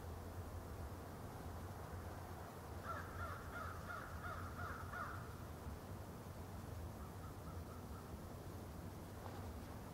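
A bird calling in the background: a quick run of about eight repeated notes from about a third of the way in, then a fainter short run later, over a steady low hum.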